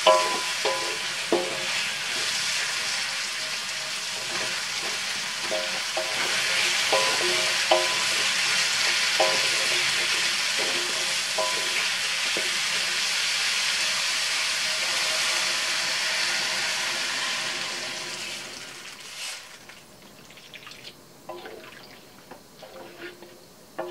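Vegetables sizzling as they are stir-fried in a wok, with the spatula scraping and knocking against the pan, its strikes ringing briefly. The sizzle dies away about three-quarters of the way through, leaving a few quieter clinks.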